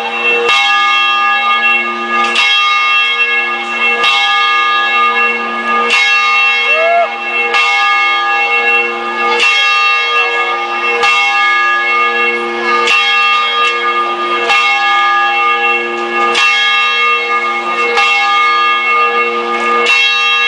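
Church bell struck at a slow, even pace, about one stroke every second and three quarters, each stroke ringing on into the next: a test ringing of the bell.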